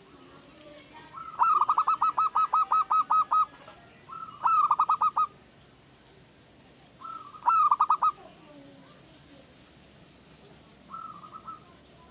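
Male zebra dove (perkutut) cooing in rapid staccato trills: a long phrase of about ten quick notes, then two shorter phrases, and a fainter short one near the end.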